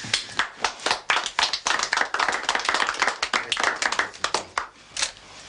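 A small group of people clapping their hands in irregular, overlapping claps, dying away about four and a half seconds in.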